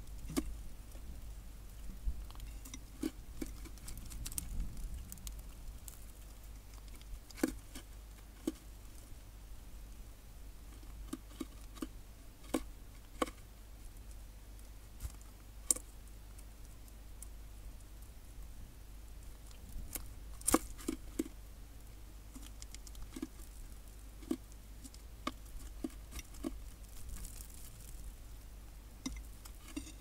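Scattered, irregular sharp taps and clicks of small birds, a Daurian redstart and a tree sparrow, pecking and hopping on a feeder tray of food, over a low steady hum.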